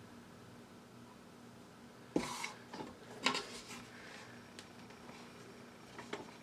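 A few clicks and knocks of hands working on something, the loudest a sharp knock about two seconds in, then a short run of smaller knocks and a few single clicks, over a faint steady hum.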